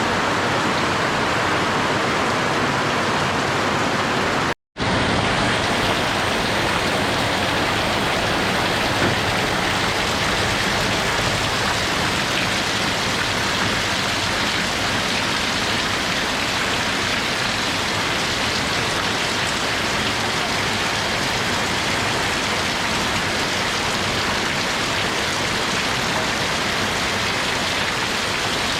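Steady heavy rain falling, an even hiss of countless drops, broken by a split-second silent gap about four and a half seconds in where the recording is spliced.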